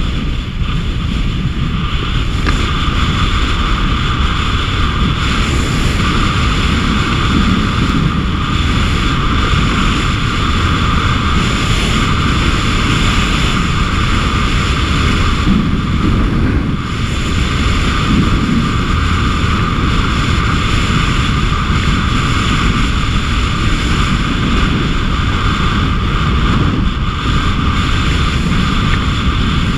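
Wind buffeting the microphone during a fast descent down a groomed ski run: a steady, loud rumble with a hiss of sliding over packed snow underneath, dipping briefly about halfway through.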